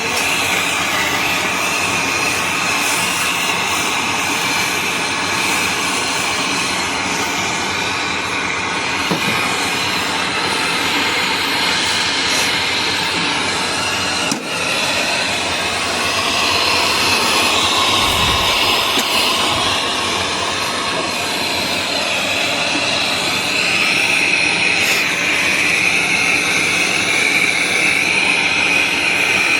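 Gas brazing torch burning with a steady loud hiss, with a brief dip about halfway.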